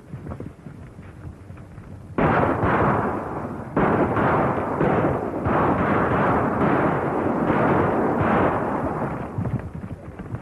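Many horses galloping together: a loud, dense rumble of hooves that starts suddenly about two seconds in, after a few lighter hoofbeats, and eases off near the end.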